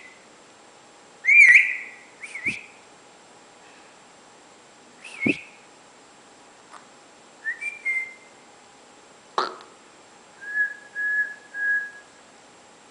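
Indian ringneck parakeet whistling: a few short, quick rising-and-falling whistles, then three short level notes near the end, with a few sharp clicks in between.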